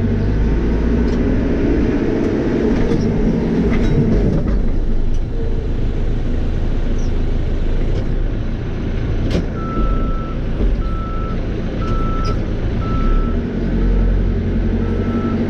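Caterpillar 430E backhoe loader's diesel engine running steadily. About ten seconds in, its reversing alarm starts beeping, about once a second.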